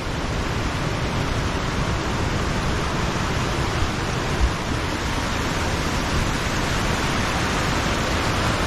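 Loud, steady rush of a cascading waterfall, an even hiss of falling water. A soft knock about four and a half seconds in.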